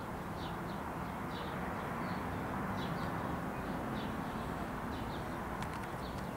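A small bird chirping over and over outdoors, short high chirps coming about once or twice a second over a steady background rush. A few faint clicks near the end.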